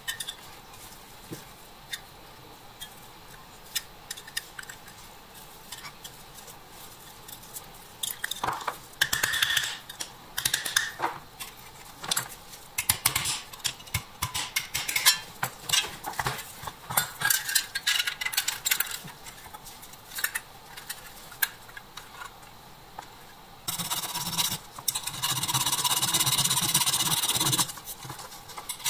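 Die-cast metal toy truck parts clinking and knocking as they are handled and tapped with a small hammer, with a run of sharp knocks in the middle. Near the end come a few seconds of steady scraping of a file on the metal.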